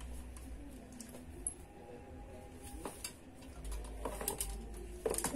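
Scattered light clicks and clinks from a ring-light tripod stand being handled and adjusted, with a few sharper clicks near the end, over a steady low hum.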